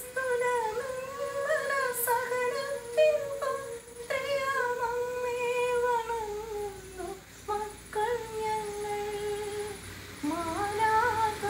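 A woman singing solo without accompaniment, holding long notes that slide between pitches, with short breaks about seven and ten seconds in.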